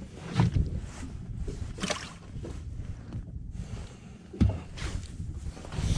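Handling noise in a small fiberglass fishing boat: a few dull thumps and knocks, the loudest about four and a half seconds in, over wind and water noise.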